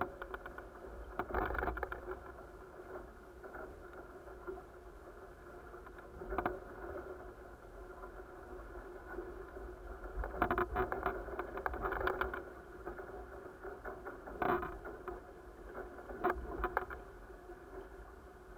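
A-Class catamaran sailing in a light breeze: water washing along the hulls over a steady low hum, with small waves slapping and knocking against the hulls every few seconds, several close together around the middle.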